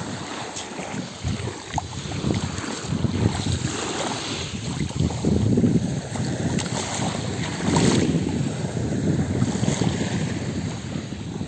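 Small waves washing in over a pebble shore, with wind rumbling on the microphone in gusts.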